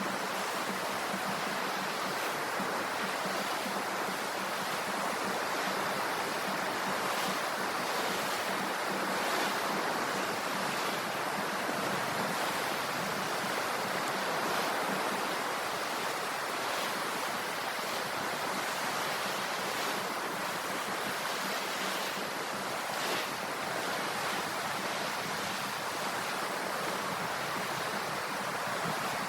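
Sea waves washing on the shore: a steady rush of surf with small rises and falls.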